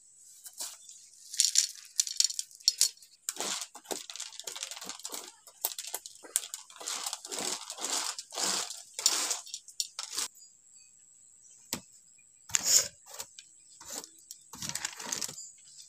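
Hands working a crumbly urad dal paste and dabbing small lumps of it onto a woven bamboo tray: irregular scraping and rustling, dense for the first ten seconds, then only a couple of isolated scrapes.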